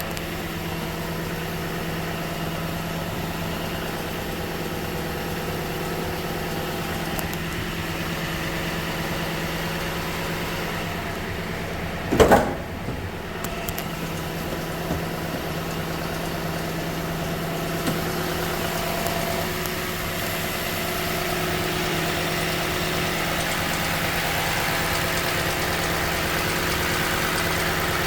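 2015 Toyota Sequoia's 5.7-litre V8 idling steadily during warm-up, recorded to show a clicking noise that the owner wonders may be a timing belt tensioner. A loud, short thump about twelve seconds in.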